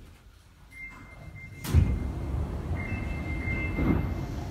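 Sliding passenger doors of a Sapporo Namboku Line 5000-series subway car opening at a station stop. A high steady tone comes on about a second in, then a sharp clunk as the doors move off, and a low rumble as they slide open. A second high tone sounds briefly partway through.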